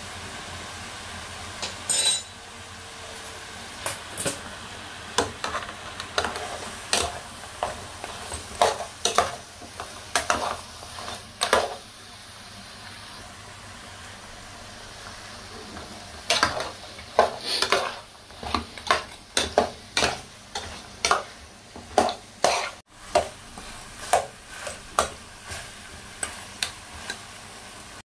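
Steel ladle scraping and clanking against a steel cooking pot as pork spare ribs are stirred and turned, in two runs of quick strokes with a pause between, over a steady hiss. A single ringing metal clink stands out about two seconds in.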